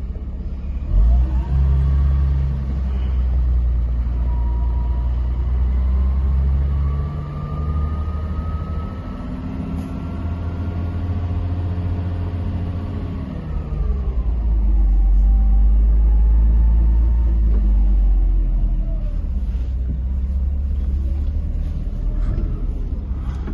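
Mercedes-Benz 280 SL's six-cylinder engine heard from inside the open car as it drives off, a steady low rumble. About eight seconds in its note climbs for several seconds as the car accelerates, then falls again as it eases off.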